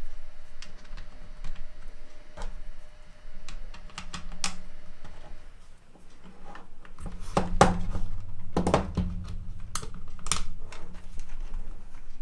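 Irregular light clicks and taps of a small hand screwdriver and screws working in a plastic tool housing, with a few louder knocks in the second half.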